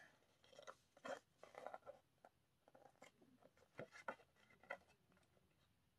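Faint, scattered rustles of paper pages being turned and handled in a paperback manga volume.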